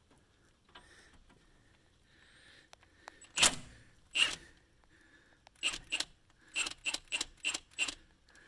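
Sharp metallic clicks and knocks of a hand wrench working on a car's outer tie rod end: two single clicks, then a quick run of about eight.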